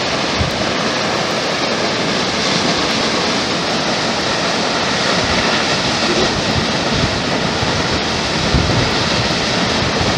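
Steady roar of water released from a high dam, falling a long way onto the riverbed below, with a few low wind buffets on the microphone.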